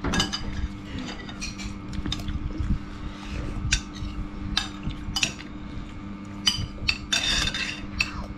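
Metal spoons clinking and scraping against bowls and a plate as children eat, in scattered sharp clicks over a steady low hum.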